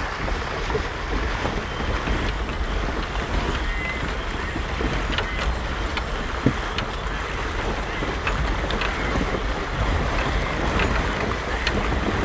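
Muddy water rushing and splashing along the side of a vehicle as it drives through a flooded track, with a steady low rumble underneath and scattered small splash clicks.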